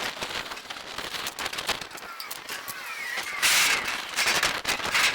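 Rattling and clattering of discarded plastic, glass and wood junk being handled and shifted, many small knocks in quick succession, with a louder rustling burst a little past the middle.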